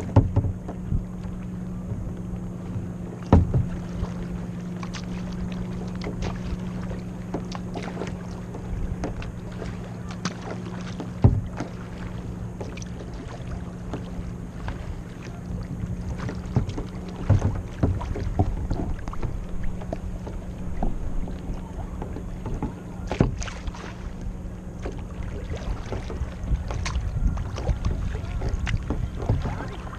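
Kayak paddling on water: paddle strokes splashing, with scattered knocks of the paddle or gear against the hull, a few of them louder. A steady low hum runs underneath.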